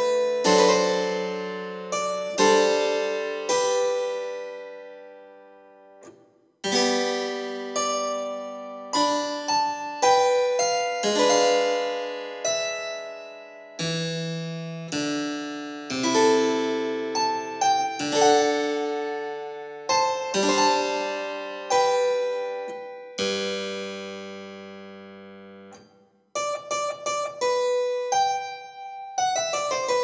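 Instrumental background music: single notes and chords struck and left to fade away, with a short pause about six seconds in and a quicker run of notes near the end.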